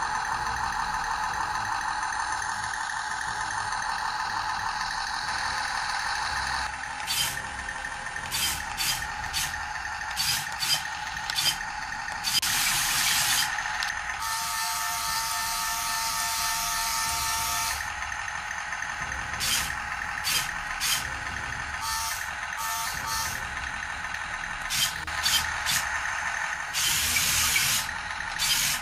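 Toy remote-control Tiger tank's built-in sound effects through its small speaker: a steady buzzy engine sound for about the first seven seconds, then a run of short, sharp hissing bursts, with a longer burst about twelve seconds in and another near the end.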